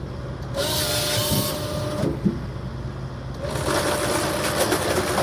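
Forestry processor running, its head's hydraulic chain saw cutting through cedar logs twice: once from about half a second in, and again from about three and a half seconds to the end. A sharp knock follows just after the first cut, over the machine's steady diesel engine drone.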